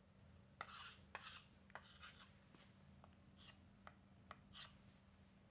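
Chalk on a chalkboard: about ten faint taps and short scratchy strokes as lines and letters are drawn, over a low steady hum.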